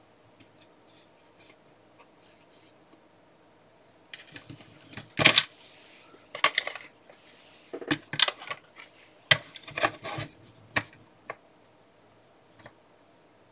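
Small hard objects being handled and set down: a scattered run of sharp clicks and clinks that starts about four seconds in, is loudest a second later, and stops around eleven seconds in.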